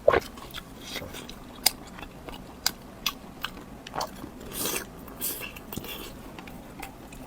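Close-miked eating: biting and chewing, heard as a run of sharp, irregular crunchy clicks with a few brief noisier chews in the second half.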